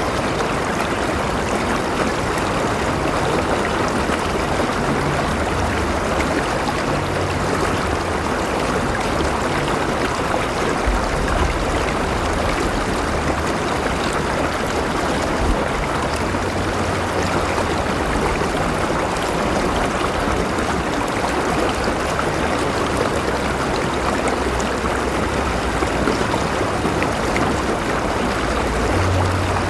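A flowing river: water running and splashing steadily over rocks, an even rushing with a low rumble underneath.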